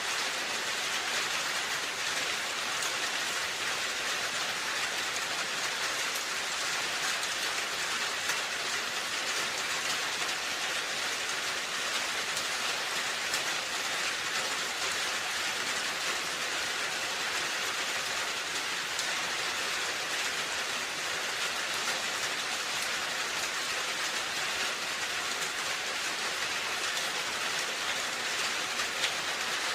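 Steady rain falling on a roof: a dense, even hiss of rain with individual drops ticking through it.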